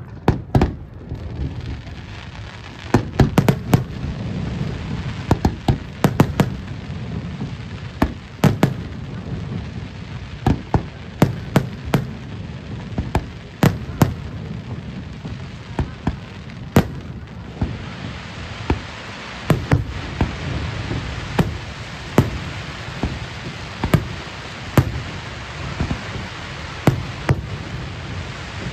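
Aerial firework shells bursting in a rapid, irregular series of sharp bangs, about one or two a second, over a steady low rumble. A little past halfway a denser crackling hiss builds beneath the bangs.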